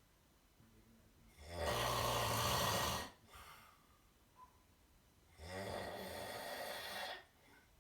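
A person snoring: two long snores, the first louder with a low rattle, the second quieter and higher, with soft breathing between them.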